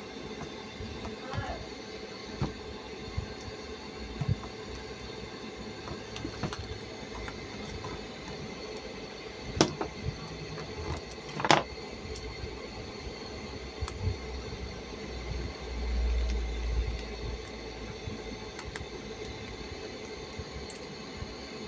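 Scattered clicks and knocks of objects being handled over a steady background hum, with two sharper knocks about midway and a brief low rumble a few seconds after.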